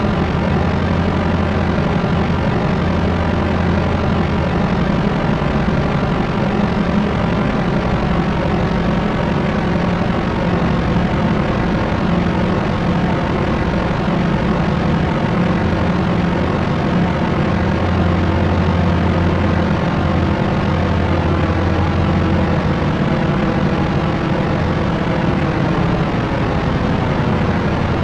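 Propeller aircraft's engines and propellers running at a steady drone: a constant low hum under an even, wide hiss, with no change in pitch or level.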